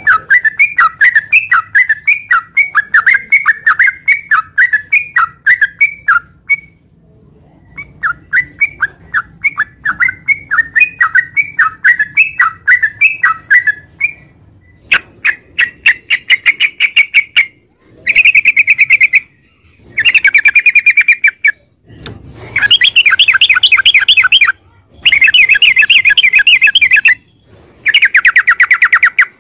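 Yellow-vented bulbul (trucukan) calling. First come two runs of quick chattering notes, then long rapid rolling trills in bursts of one to two seconds with short breaks between them.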